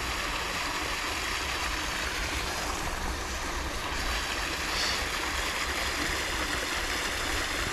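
A steady, even rushing noise without distinct splashes or clicks.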